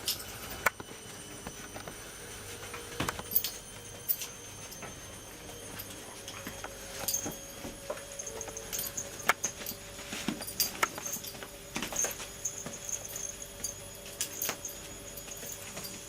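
A cat and a puppy play-fighting: irregular taps, knocks and scrabbling of paws and bodies, with a dozen or so sharp knocks spread through.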